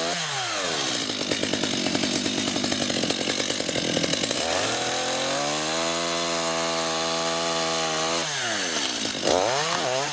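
Two-stroke chainsaw cutting into the base of a thin tree trunk. The engine speed drops low and uneven for about four seconds, climbs to a high steady pitch for a few seconds, then falls away again about eight seconds in, with a brief louder burst near the end.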